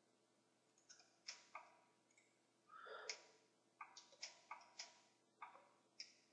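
Faint clicks of a computer mouse and keyboard keys, about a dozen at irregular intervals, some in quick pairs.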